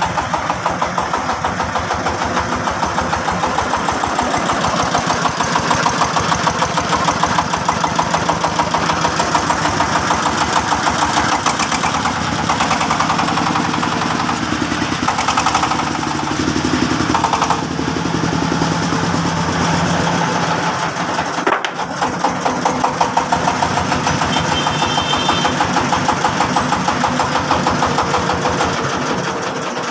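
Engine running steadily with a rapid, even pulse, with a brief change in tone near the middle and a short dip a little later.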